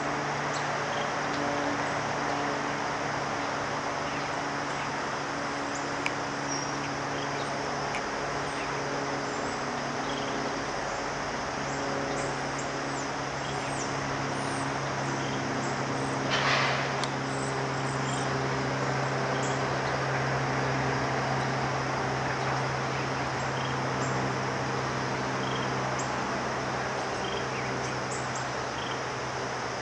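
Steady ambience of a shallow creek: a constant hiss of water, with faint short bird chirps scattered through and a low steady hum underneath. A brief louder rush comes about sixteen seconds in.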